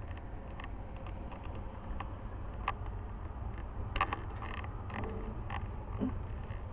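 Handling noise from rummaging through a metal wire rack: a few scattered clicks and knocks over a steady low rumble.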